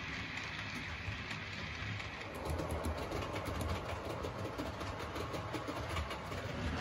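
Model trains running on the track: a steady whirring rumble, with rapid fine clicks and rattling that grow louder and busier about two seconds in.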